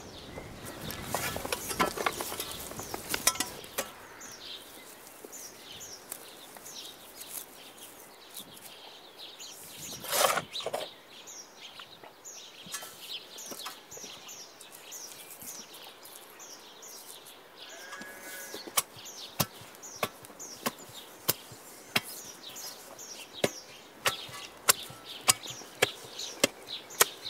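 Repeated sharp slaps of a shovel blade beating down cut turfs on top of a stone-faced hedge to settle them. The slaps start about two-thirds of the way in and come one to two a second, after quieter rustling of turf being handled. A small bird sings a short repeated note throughout.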